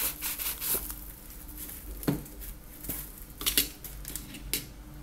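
Cardboard box and plastic wrapping rustling and scraping as a metal aerosol can is slid out, then a few sharp knocks and clinks as the can is handled. The loudest knock comes about three and a half seconds in.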